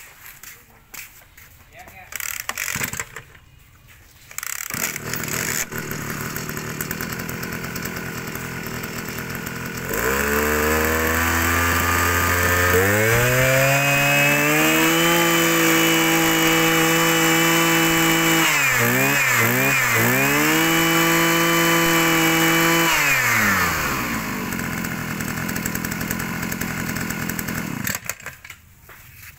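Kioritz 360 backpack brush cutter's 36 cc engine catching about five seconds in and idling, then revving up to full throttle. It eases off a few times, then drops back to idle and cuts off near the end.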